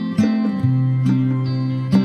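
Background instrumental music of plucked strings, with notes struck about twice a second and left to ring.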